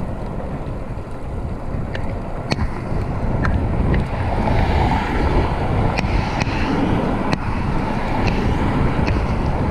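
Wind buffeting a handlebar-level action camera's microphone as a fixed-gear bicycle rolls along a street, with steady low tyre-and-road rumble. There is a scattering of sharp ticks and rattles.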